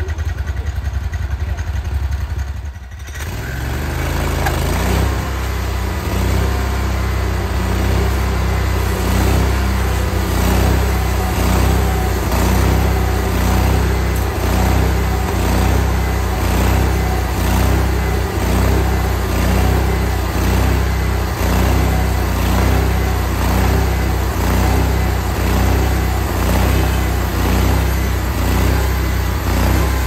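Engine of a Hud-Son Oscar 52 bandsaw mill idling, then, after a break about three seconds in, running hard under load as the band blade saws lengthwise through a large sugar maple log, with a steady regular pulsing.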